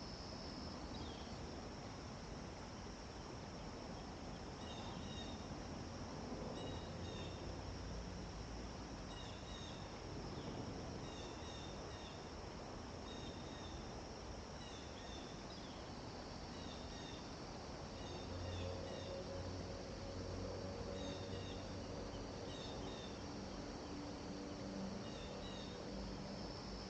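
Steady high-pitched insect chorus, with short high chirps repeating over it, often in pairs, from a few seconds in. A faint low drone joins about two-thirds of the way through.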